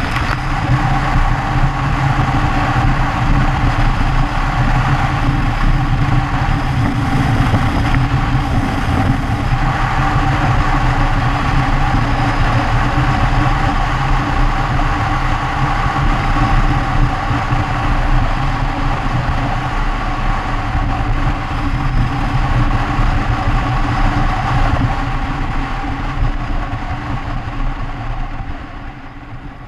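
Motorcycle engine running steadily at highway speed with a broad rush of wind and road noise, heard from a camera mounted on the bike. The sound drops away over the last few seconds as the bike slows.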